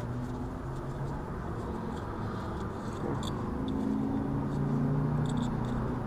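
A low, steady engine-like hum that grows louder about four seconds in, with a few faint light clicks.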